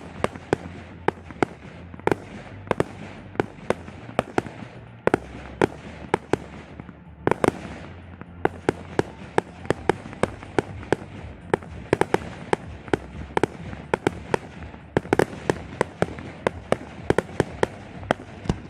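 Professional fireworks display: aerial shells bursting one after another in quick, irregular succession, dozens of sharp bangs over a continuous low rumble.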